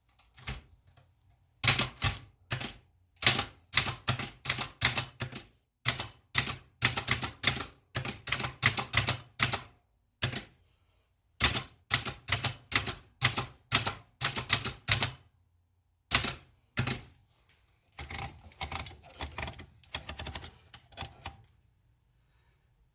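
1951 Optima Plana portable typewriter being typed on: irregular runs of sharp key strikes, several a second, broken by short pauses, with a softer run of strokes near the end.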